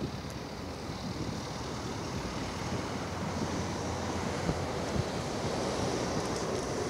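Wind rushing over the microphone, mixed with road traffic driving past.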